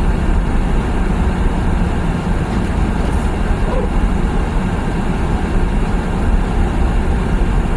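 Steady low rumble and hiss of a car driving on a snow-covered road, heard from inside the cabin: tyre and engine noise.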